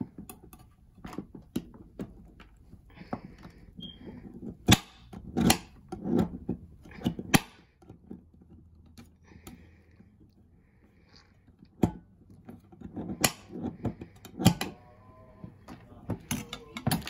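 Kitchen knife chopping and scraping a hard block of cocoa butter on a glass cutting board: irregular sharp knocks and clicks as the blade strikes the glass, bunched about five to seven seconds in and again near the end, with short scraping between.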